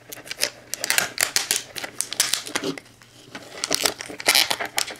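Plastic wrapping on a DVD case crinkling and tearing as it is pulled off by hand, in irregular bursts of crackle.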